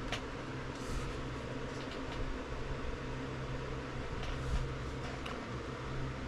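Steady low mechanical hum of a running fan or air-conditioning unit, with a few faint light clicks and rustles of cards being handled.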